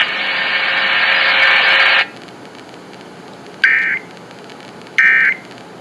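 Radio static hiss that cuts off about two seconds in, then two short warbling data bursts of an Emergency Alert System end-of-message code, a little over a second apart: the signal that the alert message is over.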